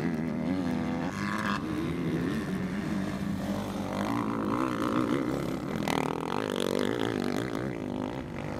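Motocross dirt bike engines revving through a corner, their pitch rising and falling as the riders work the throttle. One bike passes close around the middle.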